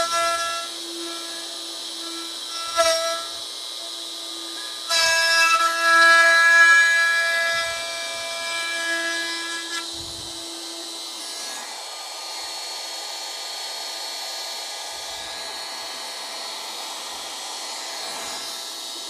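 DeWalt plunge router running, its bit cutting the curved J-slot in a wooden yarn bowl through a template jig. Loud whining cutting passes come at the start, briefly about three seconds in, and from about five to eight seconds in. After that there is a steadier, quieter whir.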